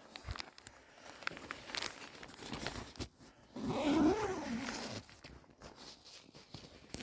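Rustling, crackling handling noises of someone climbing into a tent and a sleeping bag, with a louder wavering sound lasting about a second and a half around the middle.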